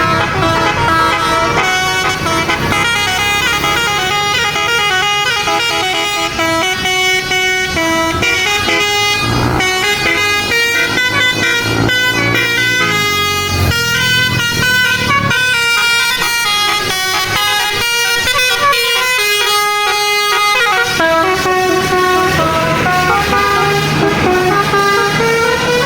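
Tour bus's 'telolet basuri' musical air horn playing a tune: a continuous run of loud horn notes stepping up and down in pitch.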